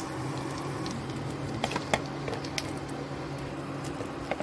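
Slotted metal spatula clicking lightly against the kadhai and plate a few times as fried potato fritters are lifted out of the hot oil, over a soft sizzle of the frying oil and a steady low hum.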